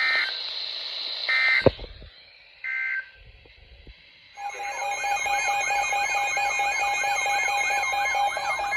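Emergency Alert System alert on a weather radio: three short bursts of two-pitch data tones, about one and a half seconds apart, with a sharp click after the second. About four seconds in, a continuous warbling, siren-like alert tone starts over a steady tone, signalling that a new warning is about to be read.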